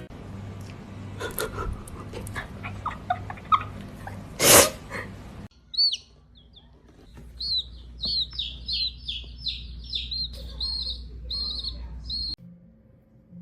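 A small bird chirping in a quick run of short, repeated high calls, about two a second. Before it comes a noisy stretch with one loud burst of sound, about a third of the way in.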